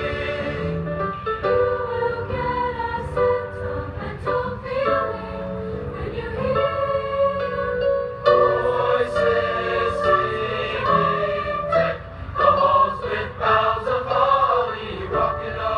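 Large mixed-voice school choir singing, many voices holding notes together in harmony.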